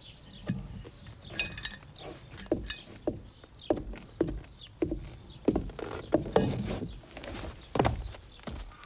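Regular thumping on wooden floorboards, about two knocks a second, from feet stamping across a plank porch.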